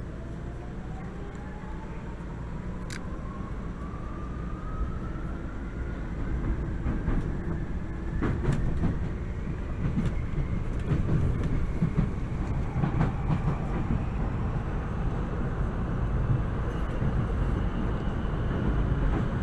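Tokyu 8500 series electric train heard from inside the car as it accelerates. A motor whine climbs steadily in pitch over the low rumble of the wheels on the rails, with a few sharp clicks. The running noise grows louder about six seconds in.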